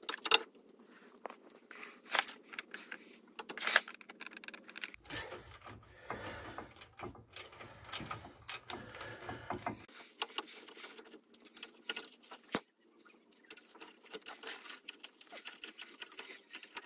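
Socket ratchet clicking irregularly with small metal clinks as the two bolts holding a disc-brake caliper carrier are wound in.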